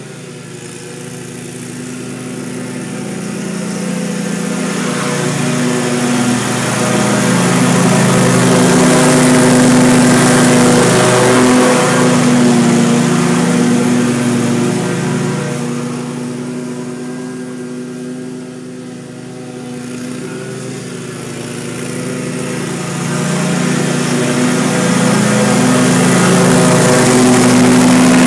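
Scag V-Ride stand-on commercial mower's 30 hp engine running steadily with the blades cutting grass. It grows louder as the mower comes near, fades around the middle as it moves off, and swells again near the end.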